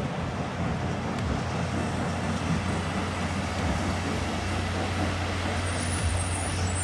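Heavy diesel engine running steadily with a low hum as a Tatra Phoenix 8x8 dump truck drives slowly up a gravel site road.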